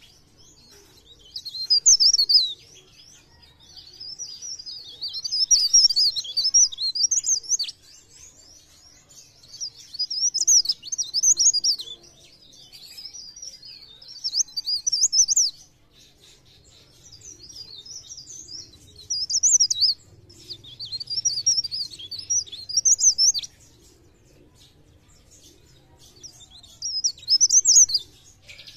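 Cikrak daun (a leaf warbler) singing fast, high twittering phrases one to three seconds long, repeated with short pauses between them.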